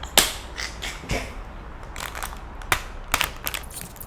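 Clear plastic film seal being peeled off a ready-made hummus bowl, crackling and crinkling in irregular sharp snaps.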